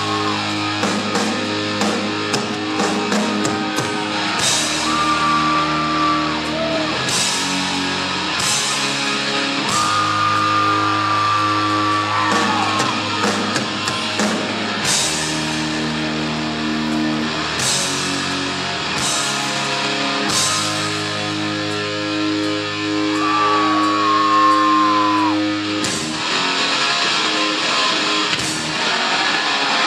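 Heavy rock band playing live: distorted electric guitars and bass holding chords over drums with repeated cymbal crashes. Long high held notes that slide slightly down in pitch ring out over the chords several times.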